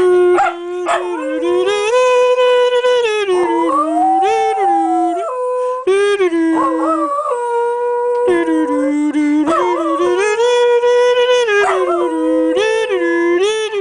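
Jack Russell terrier howling in several long, drawn-out howls that step and glide up and down in pitch, with only brief breaks.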